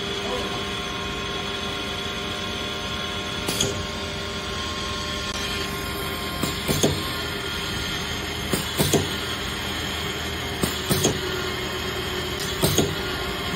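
Twin-spindle multi-drill head of a DrillMate bolt cross-drilling machine running with a steady hum while drilling safety-wire holes through bolt heads. Short sharp noises break in about every two seconds.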